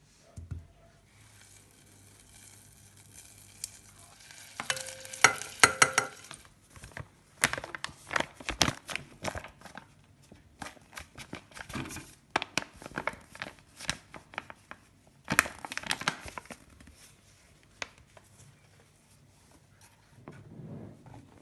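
Kitchen handling sounds: irregular clicks, knocks and clatter of utensils and dishes with crinkling of packaging, densest about five seconds in.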